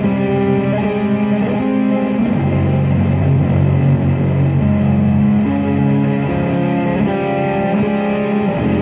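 Electric guitar played through heavy effects in a dark ambient improvisation: low notes held for seconds under higher notes that shift every half-second or so.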